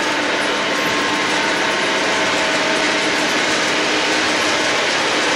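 Lionel O-gauge model train, pulled by two SD70ACe diesel locomotives, running steadily on tubular three-rail track: a continuous mechanical whir and clatter of metal wheels and motor gearing.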